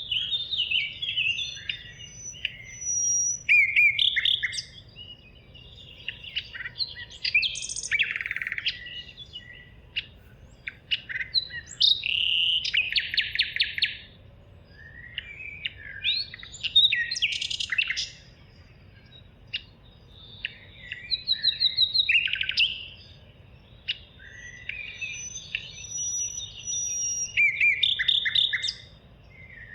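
Several songbirds singing together: overlapping chirps, trills and whistles in phrases of a few seconds with short gaps between.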